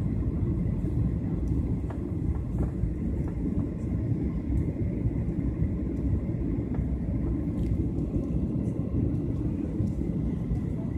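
Steady low rumble of a jet airliner in flight, heard from inside the passenger cabin: engine and airflow noise with a faint steady whine above it.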